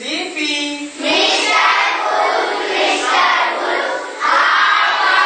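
A group of young children chanting loudly together in short repeated phrases, about one a second.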